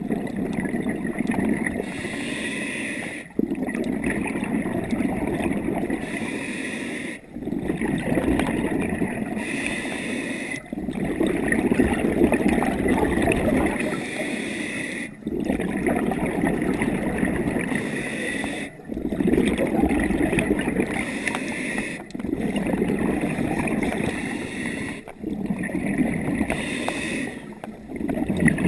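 Scuba diver breathing underwater through a regulator: each breath draws a hiss on the inhale, then a rush of gurgling exhaled bubbles. The breaths come steadily, about one every three and a half seconds.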